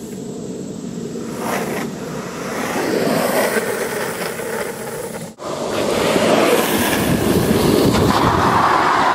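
Longboard urethane wheels rolling and sliding on asphalt: a steady rough rumble that drops out abruptly for an instant about five seconds in.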